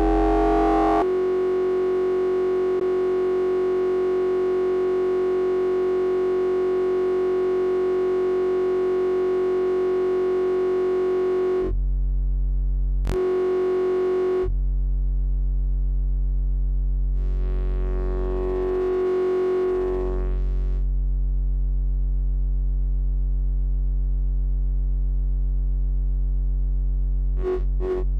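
U-he Zebra 2 software synthesizer holding one steady note while its oscillator waveshape is edited. The tone's colour changes abruptly several times and shifts more gradually in the middle. Near the end it starts pulsing about three times a second as an LFO is brought in to modulate it.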